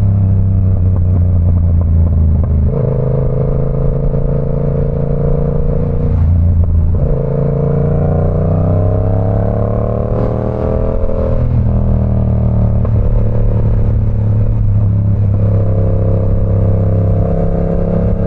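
Yamaha R7's 689 cc parallel-twin engine running as the motorcycle rides along, mostly at a steady cruise with a few throttle changes. Its note climbs slowly for a few seconds in the middle as the bike speeds up.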